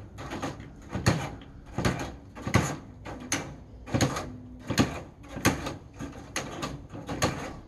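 Hand metal snips cutting galvanized chicken wire: a series of sharp snips, one each time a wire strand is cut, roughly one to two a second.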